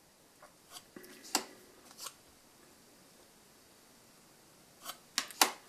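Match Attax trading cards handled one after another: short card clicks and rustles as a card is slid off and the next is brought forward, a cluster about a second in and another near the end.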